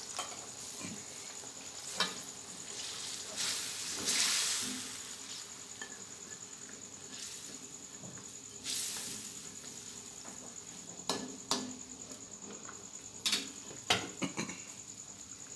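Metal spatula stirring and scraping through a wok of simmering curry, with sizzling, then several sharp clicks of the spatula against the wok near the end.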